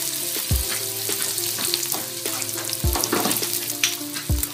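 Ground beef sizzling in the stainless inner pot of an Instant Pot on the sauté setting, a steady crackling hiss with many small pops, with three dull thumps about half a second in, near three seconds and near the end.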